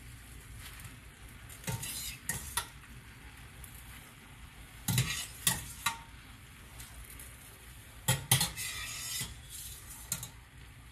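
Cooked fusilli being added to a stainless steel sauté pan, with a metal utensil knocking and clattering against the pan in several short groups, over a steady sizzle of tomato sauce simmering in the pan.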